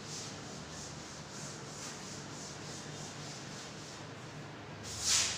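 Chalkboard being wiped with a cloth duster: rhythmic rubbing strokes, about two or three a second, with a louder swish near the end.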